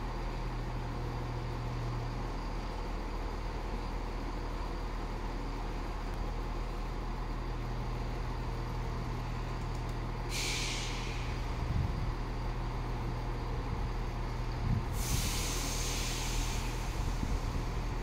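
A British Rail Class 168 diesel multiple unit idling at the platform, its underfloor diesel engines giving a steady low hum. Compressed air hisses twice, briefly about ten seconds in and for about two seconds around fifteen seconds in.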